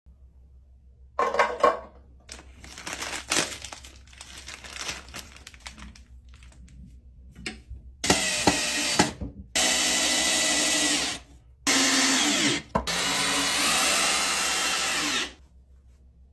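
Cordless drill running in about four long runs of one to three seconds each in the second half, fastening a metal bracket to a toilet seat. Before that come scattered clicks and taps of parts being handled.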